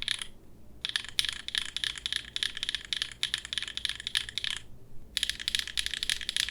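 Fast typing on a mechanical keyboard fitted with linear switches: a dense run of keystroke clacks that stops briefly twice, just after the start and again about four and a half seconds in. The switches being compared are Gateron EverFree Cedar, Gateron Deepings and HMX Cheese, with the Cedars slightly muted and lower pitched.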